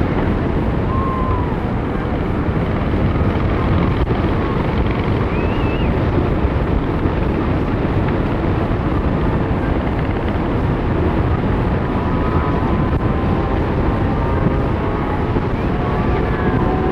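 Steady rush of airflow buffeting the microphone of a camera mounted on a hang glider in flight.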